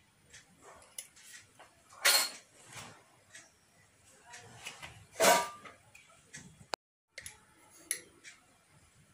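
Faint scattered clicks and light knocks of kitchen handling around a saucepan, with two short, louder noisy sounds about two and five seconds in.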